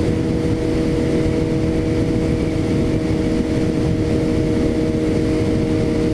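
Suzuki GSX-S750's inline-four engine at a steady highway cruise, holding one even engine note with no change in revs, under loud rushing wind noise on the microphone.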